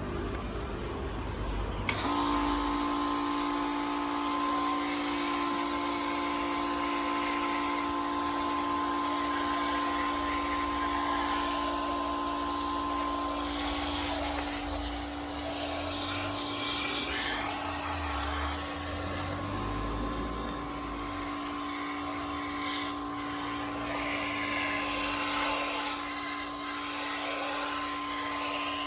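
Electric pressure washer used for air-conditioner cleaning, switching on abruptly about two seconds in and then running steadily: a high motor whine with a strong spraying hiss.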